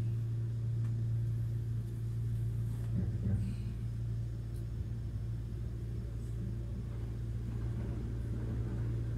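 Inside the passenger cabin of a Kintetsu 80000 series Hinotori electric limited express train: a steady low hum, with a short cluster of knocks about three seconds in.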